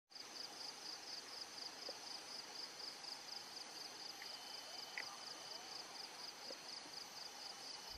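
High-pitched insect chirping in a steady, even pulse, about three chirps a second.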